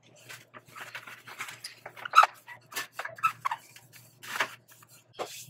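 A cloth wet with isopropyl alcohol scrubbing the painted metal reflector of an old fluorescent light fixture: irregular rubbing strokes with a few short squeaks.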